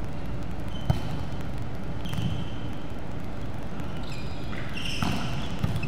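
Volleyball play on a wooden gym court: a sharp knock of the ball about a second in and two more near the end, with sneakers squeaking on the floor, over steady hall noise.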